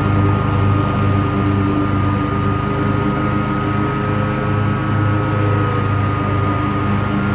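Commercial Bobcat zero-turn mower running with its cutting deck engaged while mowing thick grass: a steady engine drone with a low, regularly swelling throb and a steady high whine above it.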